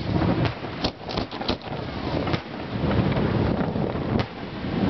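Aerial firework shells bursting overhead: a series of sharp bangs, several in quick succession about a second in, one more a little later and another near the end, over a steady low rumble of wind on the microphone.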